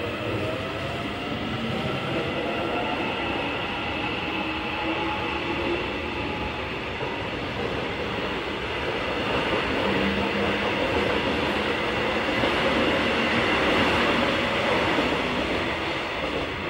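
Seoul Line 1 Korail electric commuter train pulling away from the station: its traction motors whine with tones that rise in pitch as it picks up speed, over steady wheel and rail noise that grows louder in the second half.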